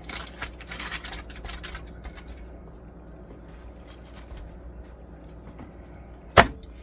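Spoon scraping and clicking against a bowl while stirring a dry spice rub, for about two seconds, over a low steady hum. Near the end, a single sharp knock.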